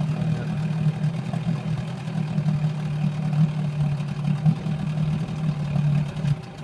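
Brand-new engine running unevenly, with irregular surges in its note: the sneezing (misfiring) its owner complains of, cause unknown to him. The sound drops sharply shortly before the end.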